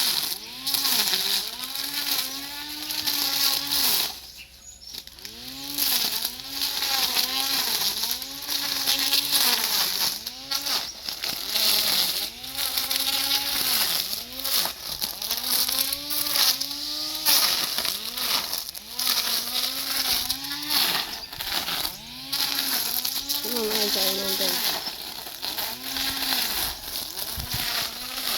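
Small-engine lawn mower (grass cutter) running and cutting grass, its engine pitch dipping and rising again in a steady rhythm about every two-thirds of a second. The engine drops back briefly about four seconds in, then picks up again.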